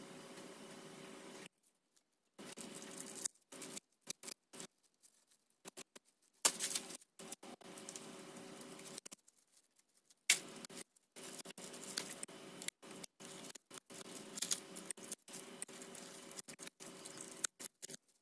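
Masking paper and masking tape crinkling, crackling and tearing in irregular bursts as they are pulled off a painted wheel arch, with the sharpest crackles about six and ten seconds in.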